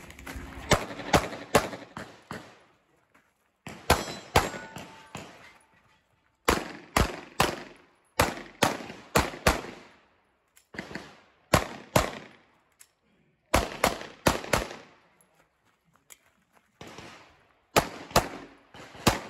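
Pistol shots from a compensated 9mm Glock 43X, fired in fast strings of two to four shots with gaps of a second or two between strings. Each shot is followed by a short echo.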